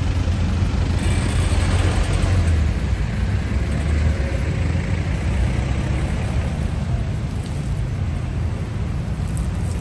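Street traffic: a steady low rumble of engines and tyres, with one vehicle passing louder during the first few seconds.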